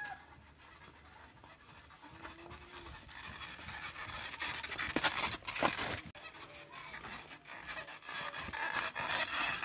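Gravel and grit crunching and scraping, with scattered sharp clicks, growing louder about halfway through.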